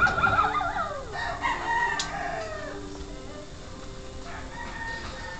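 A long animal call, about two and a half seconds, its pitch wavering and then sliding down at the end, with a sharp click at its start and another about two seconds in.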